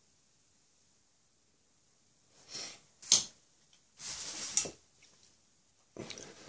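Handling sounds at a pottery workbench: after about two seconds of silence, a few short knocks and scrapes as small tools are picked up and set down, the sharpest a click about three seconds in.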